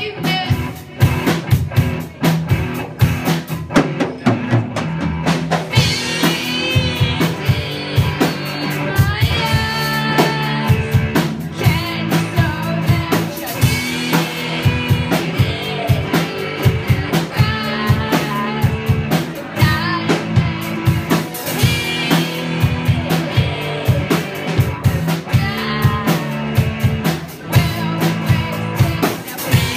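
Live rock band playing: a drum kit keeping a steady beat under amplified electric guitar, with sung vocal phrases coming in several times.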